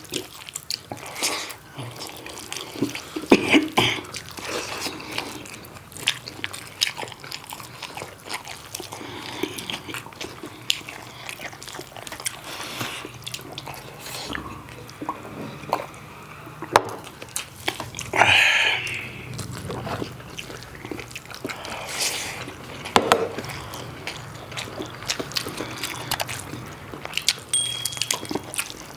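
Close-miked eating of pork curry and rice: wet chewing and lip smacks with scattered small clicks, irregular throughout, plus a louder noisy burst about eighteen seconds in.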